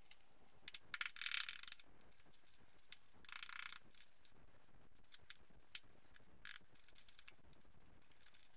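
Screwdriver scraping and prying at a rotted wheel-arch corner, crunching through rusty thin metal, body filler and expanding foam: two longer scraping runs about one and three seconds in, with scattered ticks and one sharp click near the six-second mark. The crunch is the sign that the corner is no longer metal but filler and foam packed in as a bodge repair.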